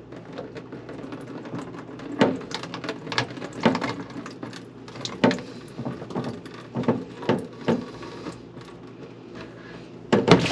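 Plastic clicks and knocks from PVC sink drain pipe and slip-nut fittings being loosened and worked apart by hand, a dozen or so irregular taps, with a louder knock near the end.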